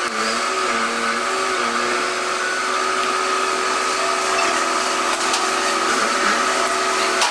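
Forklift running with a steady whining hum from its engine and hydraulics.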